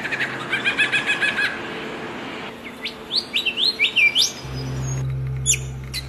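Superb lyrebird singing: a quick run of repeated notes, then a series of sharp upward-sweeping whistles, with a few short notes near the end.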